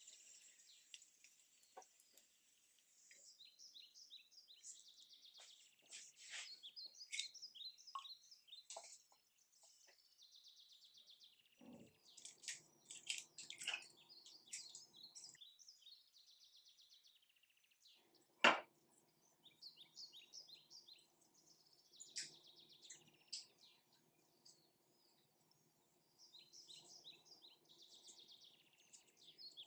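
Faint birds chirping and twittering in quick runs of short high notes. A sharp click comes about eighteen seconds in, and a faint steady low hum sits under the chirps for a few seconds before it and from the click onward.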